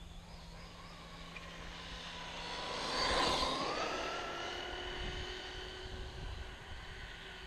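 Arrma Outcast 4S RC truck with a brushless motor making a high electric whine and tyre noise at speed. It swells to its loudest as the truck passes about three seconds in, then eases off as it runs away down the road with the whine still going.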